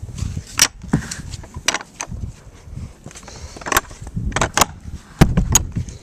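Footsteps crunching through snow, an irregular run of sharp crunches with dull thumps underneath, loudest near the end.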